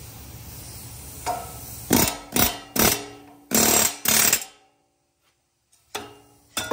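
Pneumatic air hammer driving a seized, torch-slit steel bushing out of an excavator link bore: a few sharp short hits, then two longer bursts of hammering about three and a half seconds in, and two more knocks near the end as the bushing works loose.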